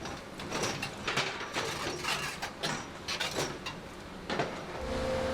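Irregular mechanical clanking and rattling, metal on metal, from construction machinery. A steady hum starts near the end.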